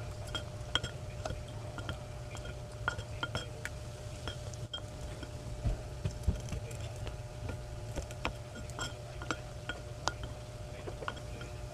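A spoon clinking and scraping in a small glass bowl of sardines in tomato sauce: scattered light clicks and taps, over a steady low hum.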